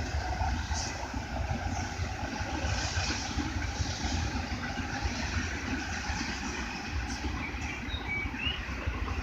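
Intermodal freight train's cars rolling past, a steady low rumble of steel wheels on the rails.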